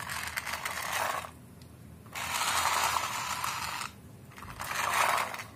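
Small plastic toy truck's gear motor whirring with a ratcheting rattle as a hand rolls it over a concrete floor to wind it up, in three bursts of a second or two each.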